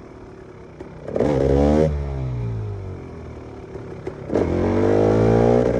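KTM EXC 300 two-stroke enduro engine revved hard twice: a short burst of throttle with rising pitch about a second in that falls off again, then a longer pull with climbing revs from about four seconds in.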